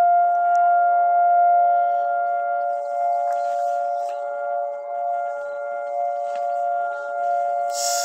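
Civil-defence air-raid siren sounding one long, steady tone, its loudness slowly swelling and sinking. It is an attack warning, which the listener takes for an attack from Gaza.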